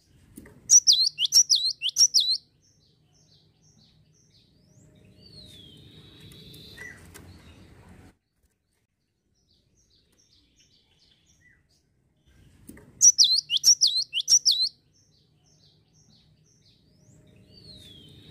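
Caged cinereous tit (gelatik) calling: a quick burst of sharp, rapid notes lasting under two seconds, then a short falling whistle, and about twelve seconds later a second identical burst. A low rumbling noise sits under the middle and end.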